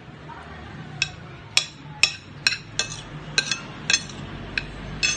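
A metal spoon clinking and scraping against a ceramic plate while scooping food. About ten sharp, ringing clinks at an uneven pace, starting about a second in.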